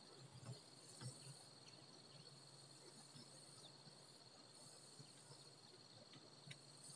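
Faint, steady, high-pitched insect trilling, with a couple of soft knocks.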